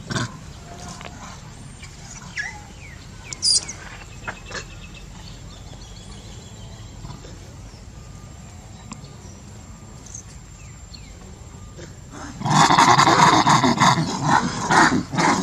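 Baby macaque screaming loudly for nearly three seconds near the end, in a pulsing, ragged cry. Earlier there are a few faint, short bird chirps.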